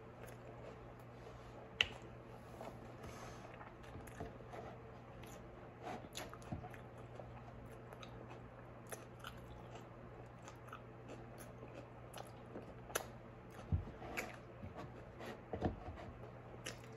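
Faint close-up biting and chewing of a vegetable taco, with small crunches and mouth clicks at irregular intervals and a few sharper clicks standing out.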